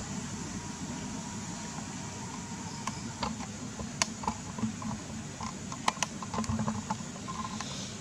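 Steady background hiss with a low hum, and scattered light clicks and taps from about three seconds in.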